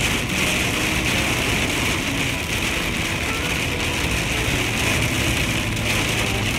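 Heavy rain falling steadily on a truck's roof and windshield, heard from inside the cab over the engine and road noise of the truck driving.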